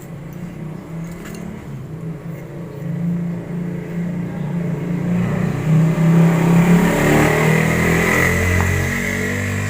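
An engine running and revving up, getting louder and rising in pitch through the second half.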